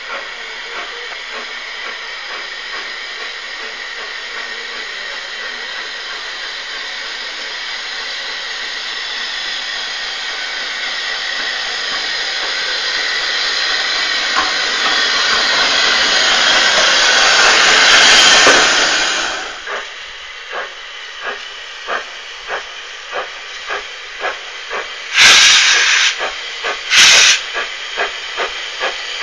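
SECR P-class 0-6-0 tank steam locomotive hissing steam steadily as it approaches, louder and louder until the sound cuts off sharply about two-thirds of the way in. Then come regular exhaust chuffs, about three every two seconds, with two short loud blasts near the end.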